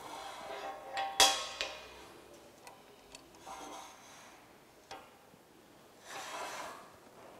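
Metal clicks and scrapes from a vernier height gauge being set and slid over a surface plate while scribing a marking line on a workpiece. A sharp metallic tick with a short ring about a second in is the loudest sound, and soft rubbing scrapes follow twice later on.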